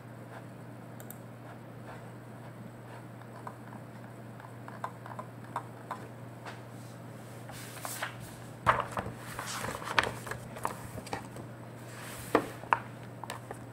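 Scattered light clicks and small knocks over a steady low hum, sparse at first and busier and louder in the second half, as a computer mouse is clicked and used to scroll through a document at a desk.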